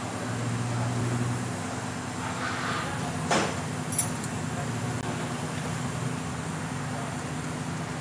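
Water trickling from the final-drive oil drain bolt of a Yamaha Mio M3 scooter into a metal pan, over a steady low hum, with a brief sharp swish about three and a half seconds in and a click just after. The gear case holds water in place of oil, the cause of the engine noise.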